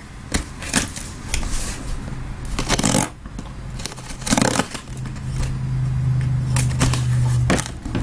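A sealed cardboard case of trading-card boxes being cut open and handled: scattered scrapes, taps and rustles of cardboard and packaging. A steady low hum comes in about halfway through and stops shortly before the end.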